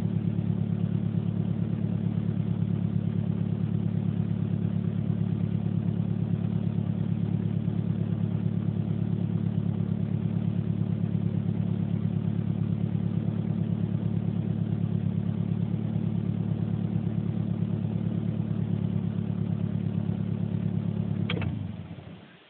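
Vehicle engine idling steadily with an even, rapid pulsing, a sound the owner asks may be abnormal; about 21 seconds in there is a click and the engine is switched off and runs down to a stop.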